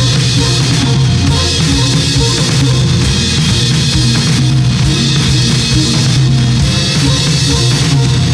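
Ambient rock band music: a drum kit playing a busy, dense beat of kick, snare and cymbals over a steady bass line and sustained guitar and synth tones.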